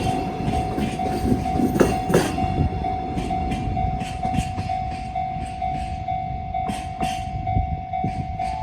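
Japanese level crossing alarm ringing in a steady repeating tone, about two to three strokes a second, as the wheels of the Chiki 5500 rail-carrying flat wagons click over the rail joints. The clicks come unevenly and grow sparser near the end.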